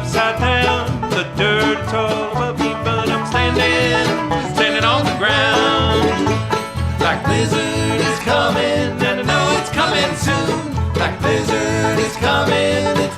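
Bluegrass band playing an instrumental passage, with banjo picking to the fore over guitar and a steady beat.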